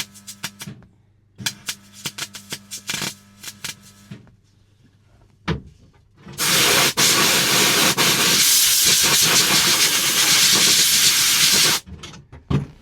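MIG welder laying short stitch welds: a steady hum with rapid crackling in two bursts of a few seconds each. About halfway through, a loud steady hiss of air runs for about five seconds and cuts off.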